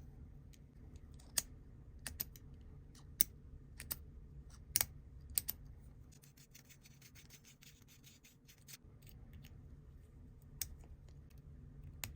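Close handling of a pen flashlight and its packaging: a string of sharp, irregular clicks, then about three seconds of fast scratchy rubbing, then two more clicks near the end.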